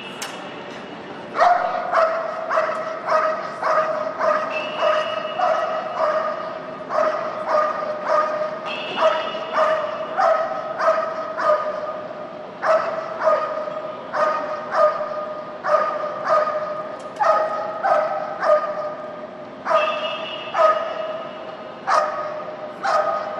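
A dog barking steadily and repeatedly, about one to two sharp barks a second with a few short breaks, as it guards an object against a decoy who approaches it in a French Ring object-guard exercise. A faint steady high tone comes and goes a few times behind the barking.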